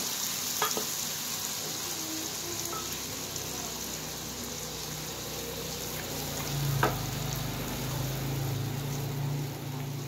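Ground spice paste sizzling as it stir-fries in hot oil in a wok, stirred with a spatula that taps against the pan a couple of times.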